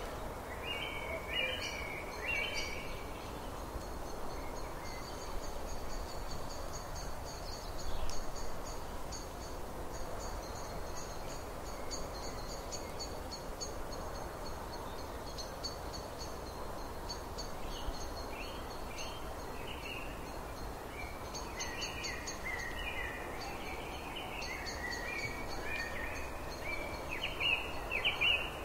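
Songbirds chirping and singing over a steady background hiss. A fast, high trill repeats through most of it, with bursts of lower chirps near the start and again through the last third.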